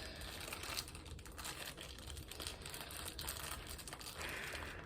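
Small plastic packaging being worked at by hand to get it open, with faint crinkling and scattered light clicks.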